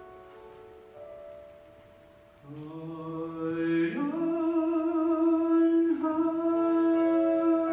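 Soft held chords from a cello ensemble, then a solo voice enters about two and a half seconds in, singing a slow, quiet ballad line in long held notes with vibrato as the accompaniment swells.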